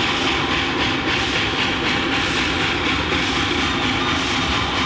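1927 steam locomotive (Pikku Jumbo) approaching under steam, making a loud, steady rush of exhaust and steam noise together with the running of the train.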